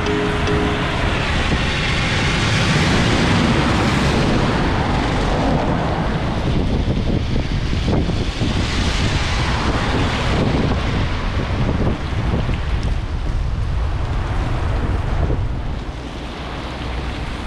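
Steady rushing wind noise buffeting the microphone while riding a bicycle in heavy rain.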